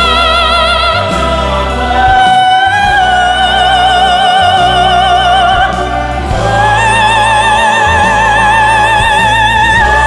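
Operatic singing: a classical voice holds long high notes with wide vibrato, stepping up in pitch about two seconds in and again about six seconds in, over a low sustained accompaniment.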